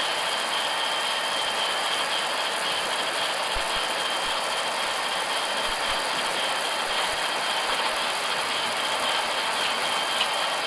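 Steady flight-deck noise of an Airbus A320 taxiing with its engines at idle: an even hiss carrying a faint constant high whine, with a few scattered low bumps.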